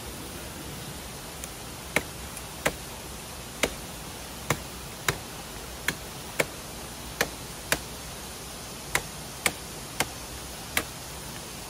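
Wood being struck in a series of about thirteen sharp knocks at uneven intervals, starting about two seconds in, over a steady hiss of flowing river water.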